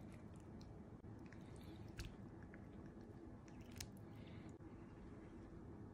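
Near silence: faint room tone with a few soft clicks, the clearest about two seconds in and another near four seconds.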